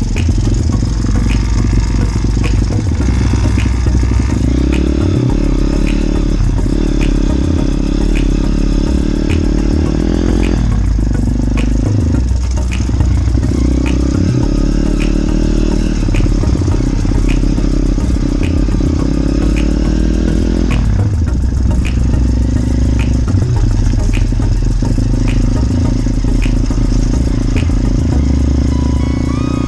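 Small motorbike engine running along a dirt farm track, rising in pitch as it revs up a few times. Light rattles and ticks sound about twice a second, over a heavy low rumble of wind on the microphone.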